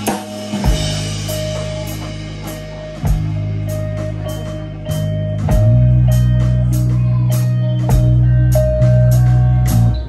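Live rock band playing an instrumental passage on electric guitars and drum kit: a short repeated guitar note over sustained low chords, with drum and cymbal hits. The band comes in louder about five and a half seconds in.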